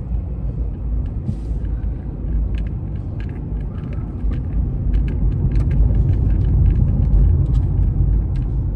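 A car driving, heard from inside the cabin: a steady low rumble of road and engine noise, with scattered light clicks and rattles.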